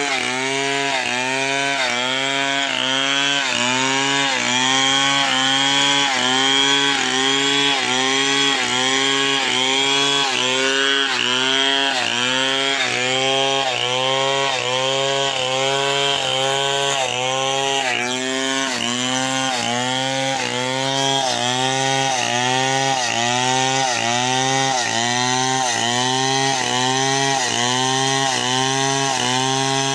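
Long-bar gasoline chainsaw ripping lengthwise along the grain of a hardwood slab to cut planks, running at full throttle under load. The engine note sags and recovers over and over in a steady rhythm, a little faster than once a second.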